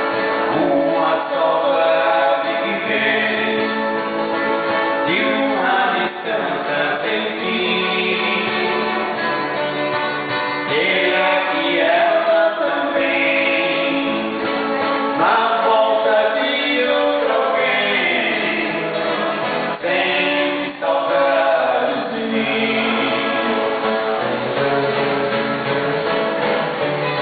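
Men's voices singing a song together in harmony, accompanied by strummed acoustic guitars, the sung phrases pausing briefly every few seconds.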